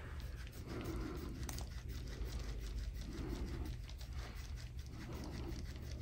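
Gua sha scraping tool drawn in repeated strokes over the oiled skin of a man's back and shoulder: a faint rough, crackly scraping that swells and fades with each stroke, over a low steady room hum.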